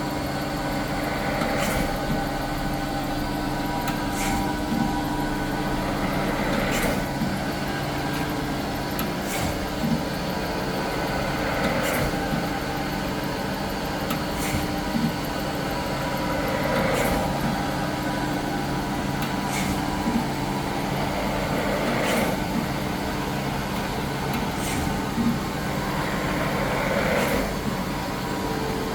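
Large hydraulic surface grinder running: a steady machine hum from its spindle and hydraulic motors, with a sharp knock about every two and a half seconds and a short swishing swell about every five seconds as the machine moves through its travel.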